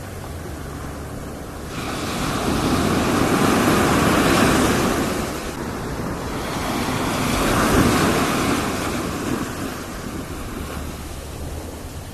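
Ocean surf washing onto a beach, swelling louder twice as waves break and then easing off.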